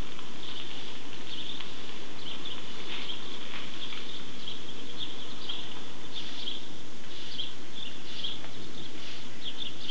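A chorus of small birds chirping and twittering continuously, many short calls overlapping.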